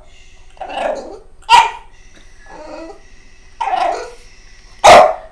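A dog barking and making odd vocal sounds: two loud sharp barks, about a second and a half in and near the end, with softer vocal sounds between them.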